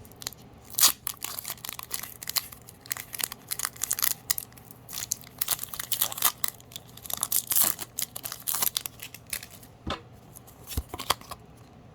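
Foil wrapper of a Pokémon TCG booster pack being torn open and crinkled in the hands: a dense run of sharp crackles and rustles, with a couple of soft knocks near the end.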